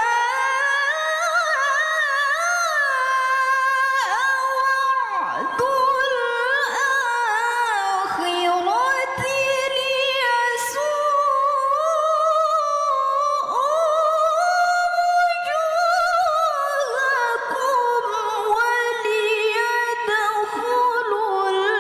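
A single high voice chanting the Quran in Arabic, unaccompanied, in a slow melodic recitation with long held notes and wavering ornamented turns, broken by short pauses for breath.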